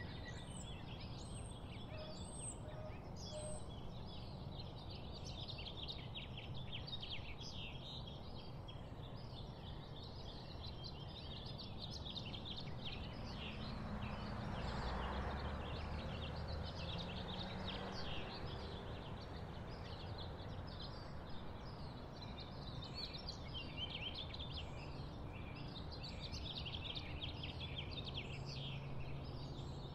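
Dense chorus of insects chirring in the vegetation, a continuous pulsing buzz, with a bird giving a few short, high, falling calls in the first few seconds.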